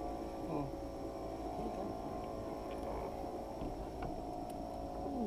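A fishing reel's drag giving line to a hooked fish in a few short whines that fall in pitch, over a steady hum.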